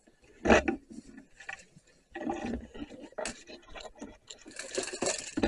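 Wood scraping and knocking in several irregular bursts: loudest about half a second in and again near the end.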